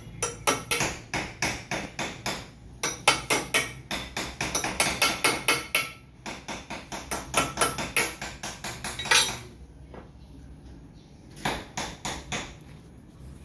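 Rapid metal-on-metal hammer tapping on an engine cylinder head, about four strikes a second, in three runs with brief pauses. After that it goes quieter, with a few scattered taps near the end.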